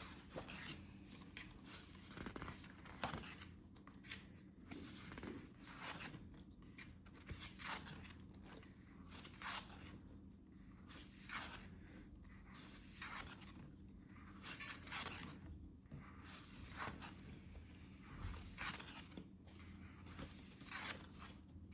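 Paper calendar pages being flipped and handled: soft rustles and swishes at irregular intervals, over a faint steady low hum.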